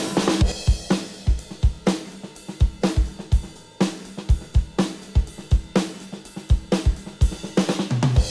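Recorded drum kit playing a steady beat, with kick drum, snare, hi-hat and cymbal hits, played back as program material through a stereo bus compressor.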